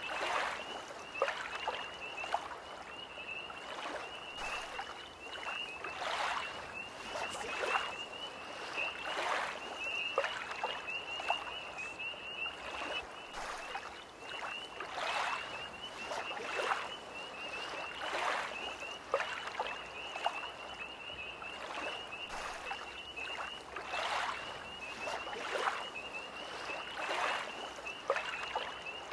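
Small lake waves lapping at the shore, a soft splash about every one to one and a half seconds, under a tree frog's continuous high, pulsing trill.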